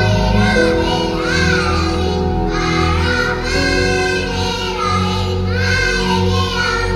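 A group of young children singing into microphones over a musical accompaniment, with long held notes that bend in pitch, amplified through a hall's sound system.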